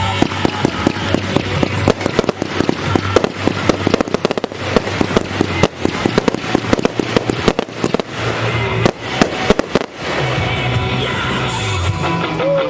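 Fireworks going off in a rapid barrage of bangs and crackles over music, thinning out about ten seconds in as the music carries on.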